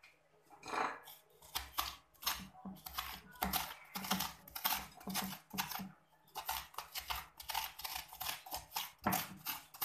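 A spoon scraping the seeds and soft pulp out of a halved winter melon (wax gourd), in quick repeated strokes, with a short pause about six seconds in.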